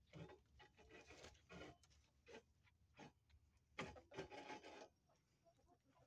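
Faint, irregular rustling and scraping in the dry dirt and litter of a chicken run, the loudest cluster about four seconds in.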